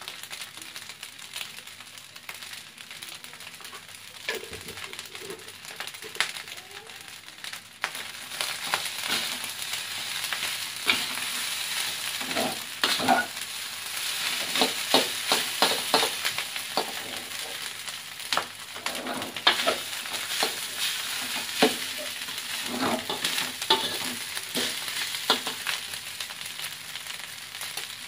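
Fried rice sizzling in a wok while a metal spatula stirs and turns it, scraping and clinking against the pan. About eight seconds in the stirring grows louder, with frequent sharp scrapes.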